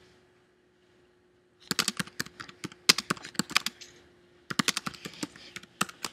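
Typing on a computer keyboard: two quick runs of keystrokes with a short pause between them, after a near-quiet start of under two seconds.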